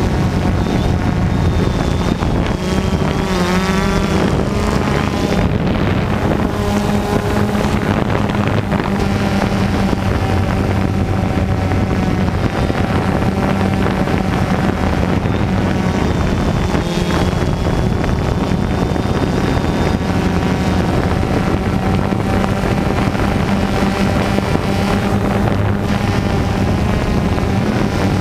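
DJI Phantom 2 quadcopter's motors and propellers heard from the camera mounted on it: a loud, steady multi-tone hum whose pitch wavers now and then as the motor speeds adjust, with wind noise on the microphone.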